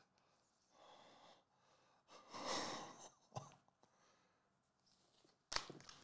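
A quiet room with a soft breathy sigh about two seconds in, a small tap, and a sharp click near the end as a felt-tip marker is set down on the table.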